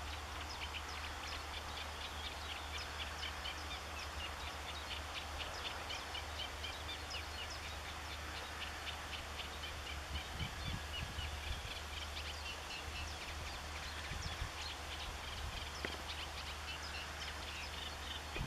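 Small songbirds twittering and chirping in quick, overlapping calls, over a steady low hum.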